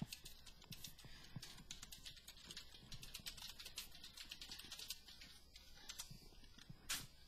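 Typing on a computer keyboard: faint, irregular key clicks several times a second, with one louder click near the end.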